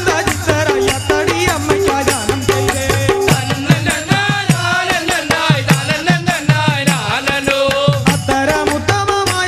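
Music: a repeating melody over fast, dense rattling percussion.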